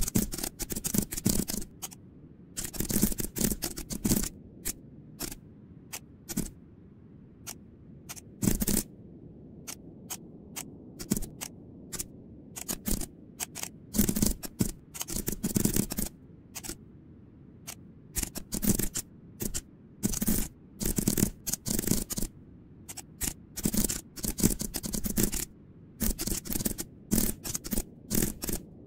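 Computer keyboard being typed on, fast runs of key clicks broken by short pauses.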